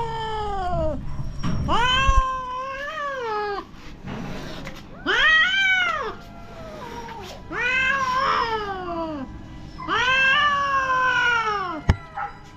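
Mother cat yowling in a drawn-out threat at an approaching puppy, a warning to keep away from her kittens: about five long calls, each rising and then falling in pitch, with short pauses between them. A sharp click sounds near the end.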